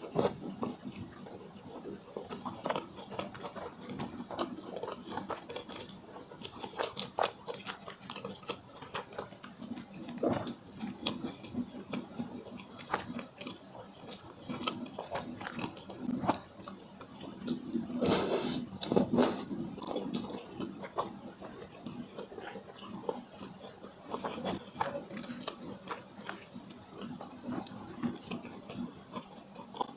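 Close-miked eating sounds: irregular wet chewing and biting clicks and smacks of a mouth working through soft food, with a louder run of bites and smacks about two-thirds of the way through.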